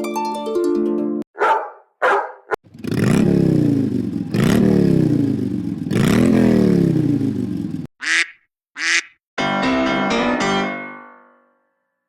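A run of different mobile phone ringtones and alert tones played back to back: a short electronic melody, a few quick blips, three long descending swoops, two high chirps, then a piano-style ringtone melody that fades out.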